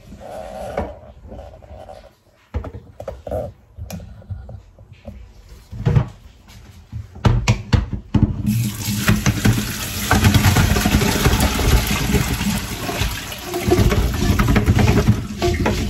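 Limewater and pumpkin cubes poured from a pot into a plastic colander in a stainless steel sink: a steady splashing rush of draining water from about halfway through to the end. Before it come a few scattered knocks and clatters.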